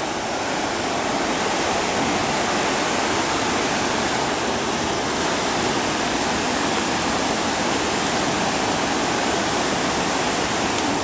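Waterfall: the steady rush of water falling and cascading over rocks, an even, unbroken roar of noise.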